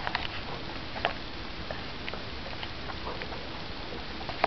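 Low steady hiss of room noise with a few scattered light clicks and taps, the clearest about a second in.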